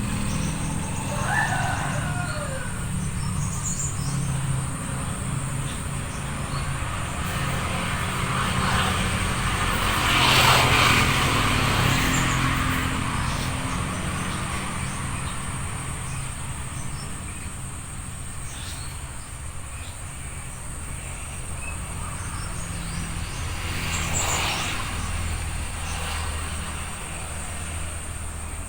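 A motor vehicle passes about ten seconds in, its noise swelling and fading over a steady low engine hum, with a smaller swell near the end. A steady high insect buzz runs underneath, and a few short bird chirps come near the start.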